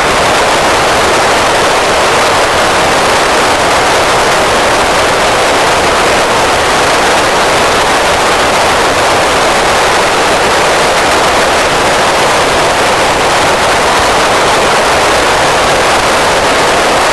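Loud, steady FM static hiss from the Icom ID-5100 transceiver's speaker with the squelch open, tuned to PO-101's 145.905 MHz downlink. The hiss means no satellite signal is being received.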